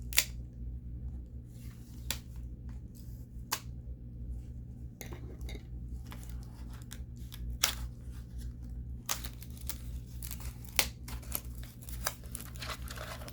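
Action-figure packaging and small plastic accessories being handled: tearing and crinkling, with scattered sharp clicks, over a steady low hum.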